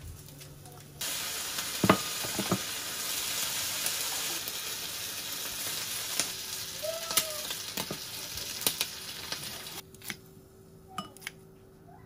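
Bacon sizzling in a cast-iron frying pan, a steady hiss that starts abruptly about a second in and cuts off near the end, with a couple of sharp knocks early in the frying.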